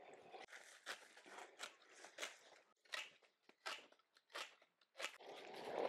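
Hand pruning secateurs snipping through borage stems, a quick irregular run of about a dozen crisp cuts, roughly two a second, as the plants are chopped up small.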